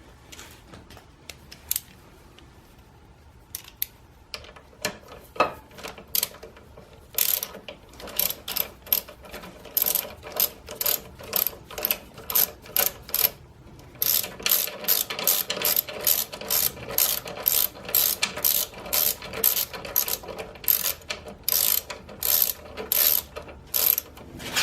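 Socket ratchet wrench tightening a bolt on a motorcycle's front brake caliper: a few scattered clicks at first, then a long run of rapid ratchet clicks that pauses briefly about halfway through.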